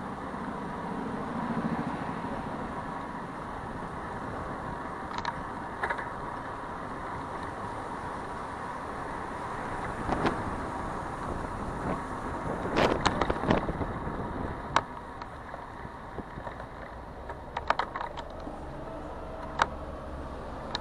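City street traffic noise heard from a moving bicycle, steady throughout. Sharp clicks and rattles come in a cluster about two-thirds of the way in, with a few more single clicks near the end.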